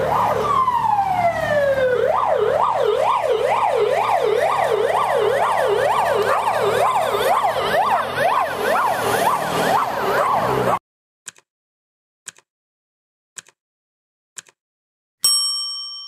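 Ambulance siren: one falling wail, then a fast up-and-down yelp of about two sweeps a second that cuts off suddenly. Four ticks about a second apart and a ringing ding follow, as a countdown timer runs out.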